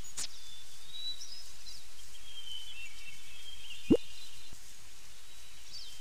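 Background nature ambience from a 3D animal game: birds chirping over a steady hiss, with a single short low pop about four seconds in.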